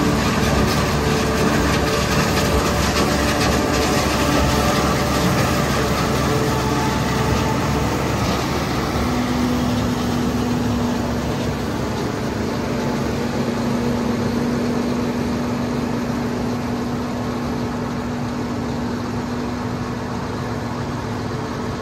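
John Deere 5830 self-propelled forage harvester running under load while chopping corn, a steady heavy machine drone with several engine tones. A strong steady hum joins in about nine seconds in.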